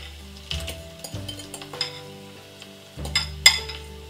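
A metal fork scraping mashed potato out of a ceramic bowl into a frying pan of cooked minced meat, with scattered scrapes and clicks and one sharp clink about three and a half seconds in. Soft background music with sustained notes plays underneath.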